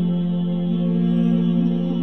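Background music: a sustained new-age drone holding one low note with steady overtones.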